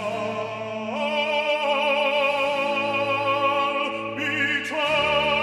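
Background music: an operatic voice sings long notes with a wide vibrato over an orchestra, moving to a new note about a second in and again near the end.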